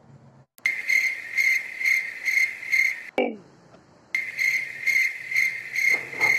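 Cricket chirping at night: a steady high trill that swells about twice a second. It breaks off about three seconds in with a short falling sweep, then resumes about a second later.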